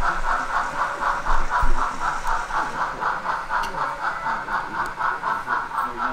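Model steam locomotive's sound decoder chuffing steadily, about five beats a second.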